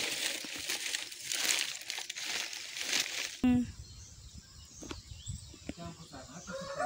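Crinkling, rustling noise with repeated surges for about three and a half seconds. It then cuts off suddenly to a much quieter background with a few faint clicks.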